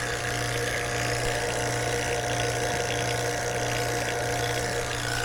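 Refrigeration vacuum pump running steadily, pulling a vacuum on a heat pump's refrigerant lines: an even low hum with a thin steady whine above it.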